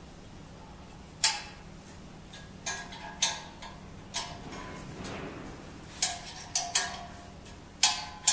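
Steel hex key clinking against bolt heads and the steel mounting plate as a screen printing press arm is bolted together. The clicks are sharp and irregular, with a quick cluster of several close together near the end.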